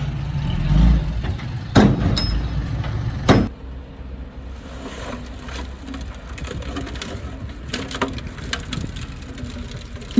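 Heavy machinery engine running low with two loud knocks, then, after a sudden drop in level, quieter with scattered sharp cracks like wood snapping.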